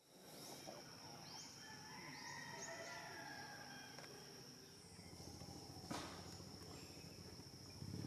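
Faint forest ambience: a steady high-pitched insect drone, with several short rising bird chirps and calls in the first three seconds and a single sharp click about six seconds in.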